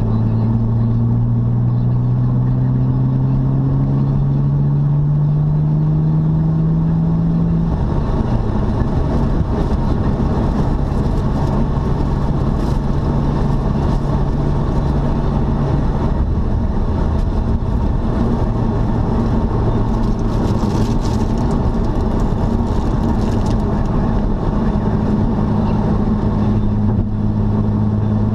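Car driving, heard from inside the car: steady engine and road noise. The engine note climbs for about eight seconds as the car accelerates, then drops suddenly and holds steady, and steps lower again about halfway through.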